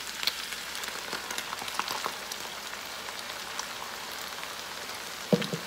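Ground beef, potatoes and olives sizzling and crackling steadily in a skillet as thick blended tomato sauce is poured over them. A brief louder sound comes near the end.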